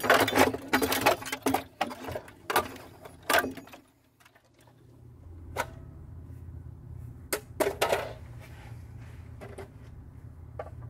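Clattering and clicking as the old RV automatic transfer switch and its loose wiring are handled and pulled out, for about the first three and a half seconds. After a brief quiet moment, a low steady hum with a few scattered clicks follows.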